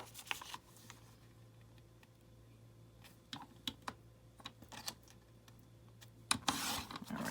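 Scattered light clicks and taps of scrapbook paper being handled and lined up for cutting, then a short swish near the end as the sheet is cut in half.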